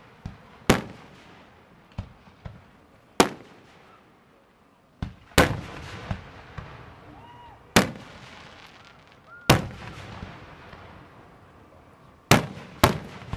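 Aerial firework shells bursting overhead: seven sharp bangs, about one every two to three seconds, each trailing off in an echo, with a few smaller pops between and two bangs in quick succession near the end.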